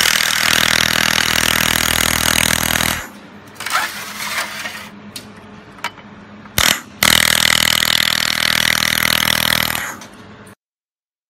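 Handheld fibre laser welding gun firing on 2.5 mm stainless steel: two loud hissing passes, one of about three seconds and a second starting about seven seconds in, each opening with a sharp click. A steady low hum runs under the first pass.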